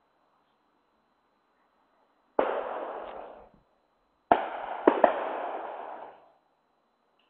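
Loud bangs, each starting suddenly and dying away over about a second. There is a single bang, then about two seconds later a quick cluster of three.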